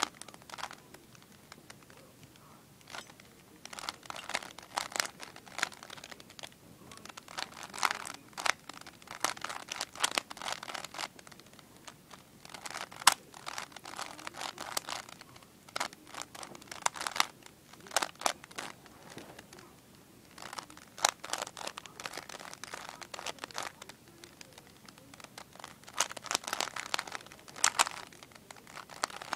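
A 3x3 Rubik's Cube's plastic layers being turned quickly by hand: bursts of rapid clicking and rasping turns, broken by short pauses between sequences.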